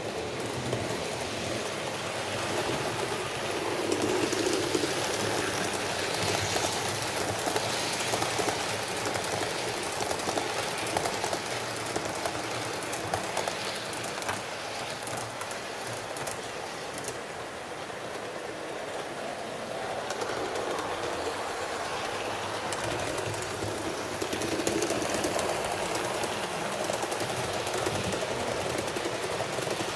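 HO-scale Fleischmann class 39 model steam locomotive and its train of coaches running along the layout track: a steady rolling noise with clicking of wheels over the rail joints. It grows louder about four seconds in and again near the end, as the train passes close.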